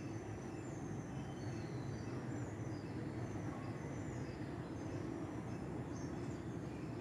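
Steady low outdoor rumble with small birds chirping briefly now and then.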